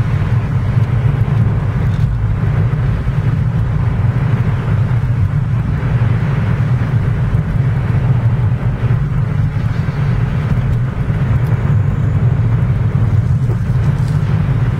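Steady engine and road noise of a small car, heard from inside the cabin while driving, with a constant low hum.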